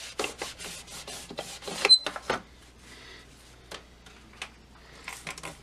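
A cloth wiping the Wave Magnet antenna of a Zenith Trans-Oceanic radio in quick rubbing strokes, about five a second, to get the surface grime off, with a brief high squeak about two seconds in. The rubbing then stops and a few light clicks and knocks follow.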